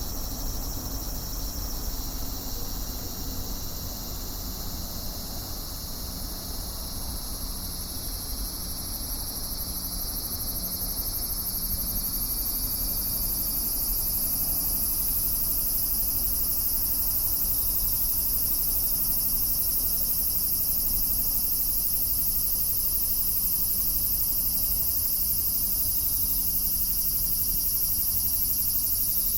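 Cicadas calling in a continuous high shrill buzz that builds over the first dozen seconds and then holds steady, with a low rumble beneath.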